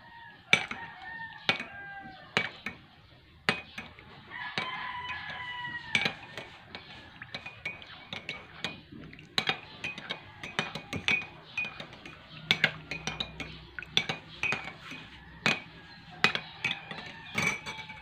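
A rooster crowing several times in the background, the longest crow about four and a half seconds in. Frequent sharp clinks of a metal spoon against a ceramic mug and plate run through it.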